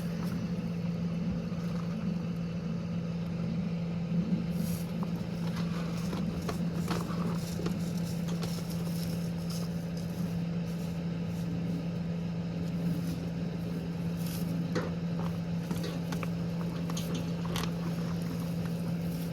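An engine running steadily at a constant speed, with a strong even hum, and scattered light clicks and rustles over it.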